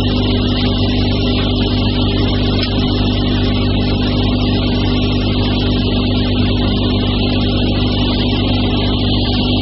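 KP-62 round-stick (dowel-turning) machine running with a steady, unchanging hum.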